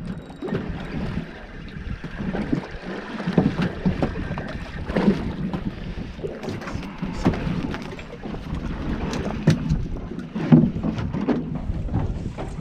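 Wind buffeting the microphone on a small fishing boat at sea, with an uneven rumble and scattered knocks and clicks.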